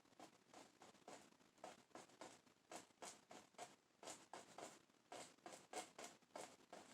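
Faint, soft scratchy dabs of a paint brush tapping oil paint onto canvas, about three a second.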